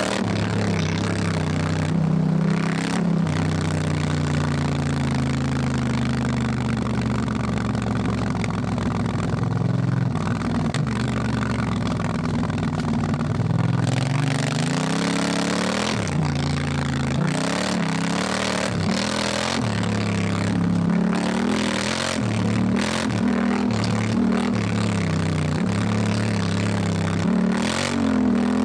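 Honda Africa Twin's parallel-twin engine under way, a steady run for the first dozen seconds, then the pitch dropping and climbing again and again with throttle and gear changes, over wind and tyre noise.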